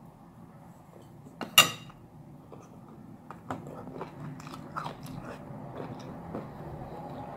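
Close-miked eating: one loud, sharp crack about a second and a half in, then biting and chewing with a run of small clicks and smacks.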